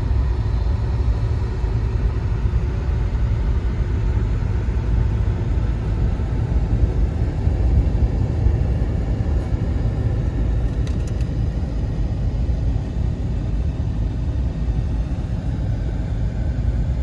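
Steady low rumble of a car on the move, engine and road noise without any change.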